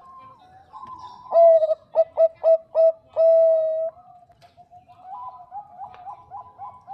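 Zebra dove (Bangkok-type perkutut) cooing. First comes a loud phrase of one long note, four quick short notes and a long held final note. Then a softer run of short coos follows at about four a second.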